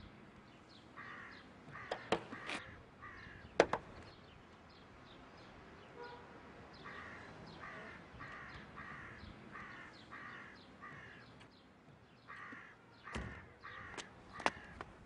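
Crows cawing over and over in short series of harsh calls. A few sharp clicks or knocks cut through, the loudest about three and a half seconds in.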